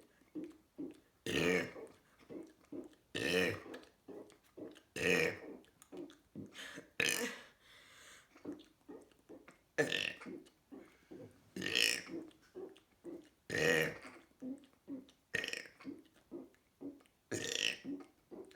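A person burping repeatedly for a burp challenge: about nine loud burps, roughly one every two seconds, with many short, quieter sounds between them.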